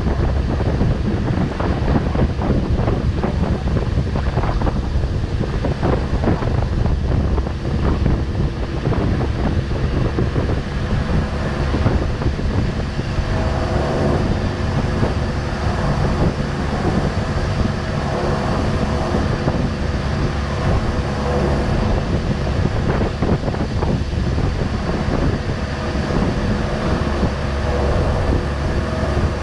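Motorboat engine running steadily at speed, with wind buffeting the microphone; a steady engine hum stands out more clearly from about halfway through.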